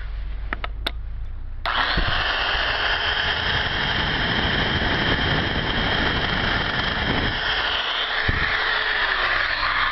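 Electric drill with a 2 mm bit boring a hole through the end of an aluminium drink can. After a few handling clicks it starts up about two seconds in and runs steadily, its pitch sagging slightly near the end.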